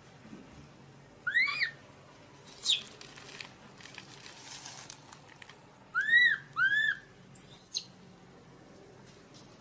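Newborn macaque infant crying in high-pitched, arched calls: one call about a second in, a sharper, higher squeal soon after, then a run of three calls close together about six to eight seconds in.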